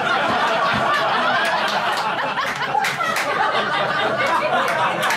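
A group of people laughing together, a steady wash of many overlapping laughs and chuckles.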